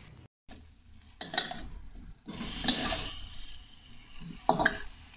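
Spatula stirring and scraping chicken pieces around a wok as they sauté in oil, in a few separate strokes, the longest about two seconds in.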